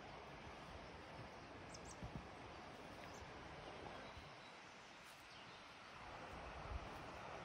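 Faint woodland ambience: a steady hiss with two brief high bird chirps about two seconds in, and a few soft low thumps as someone walks the path.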